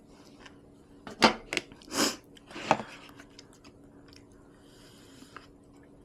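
Close-miked eating: soft chewing and small wet mouth clicks, with a few louder wet mouth sounds between about one and three seconds in.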